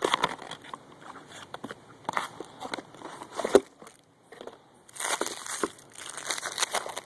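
A cardboard mailer box being torn open and handled by hand, the cardboard and paper crackling and crinkling in irregular bursts. There is a sharper crack about three and a half seconds in.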